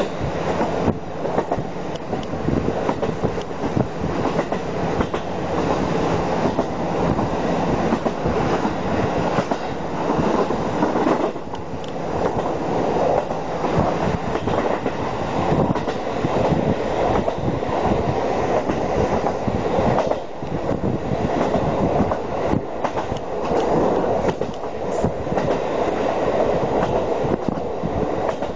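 Diesel railcar heard from inside the passenger cabin while running along the line: a steady mix of engine and wheel noise, with the repeated clickety-clack of the wheels passing over rail joints.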